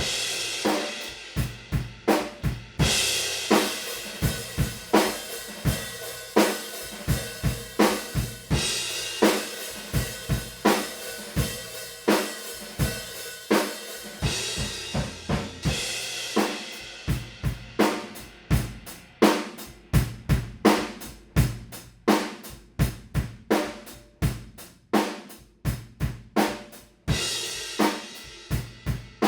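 Recorded drum kit playing a steady groove of kick, snare and hi-hat, with crash cymbals washing in every several seconds.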